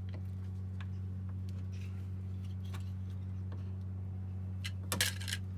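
Small hand tool working a wire, most likely a wire stripper on the insulation: scattered light clicks, then a brief louder scraping snap about five seconds in, over a steady low hum.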